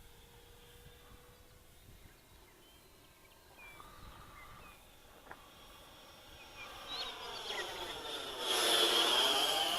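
Whine of the Freewing F-5 radio-controlled jet's electric ducted fan, faint at first, then growing loud about seven seconds in as the jet passes close, loudest near the end with a high steady whine and a sweeping whoosh.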